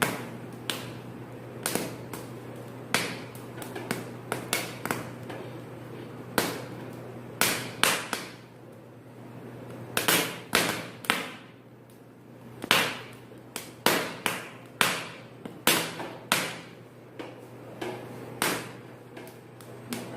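Fresh corn cob roasting directly over a gas stove flame, its kernels cracking and popping in sharp, irregular snaps, often several a second, over a low steady hum.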